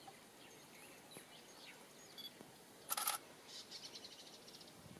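Quiet open-air ambience with scattered bird chirps. About three seconds in comes a short loud scratchy noise, followed by a quick high ticking trill of roughly ten ticks a second for just over a second.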